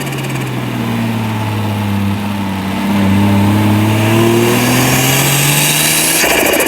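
Turbocharged Toyota 1G-FE straight-six with a straight-pipe exhaust, its engine note climbing slowly in pitch as the revs build. A turbo hiss rises over it near the end.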